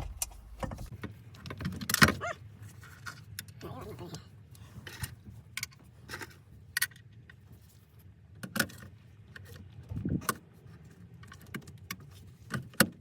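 Small metal parts clinking and knocking as new spacers and hardware are handled and fitted at a car's shifter mount, in scattered sharp clicks, the loudest about two seconds in.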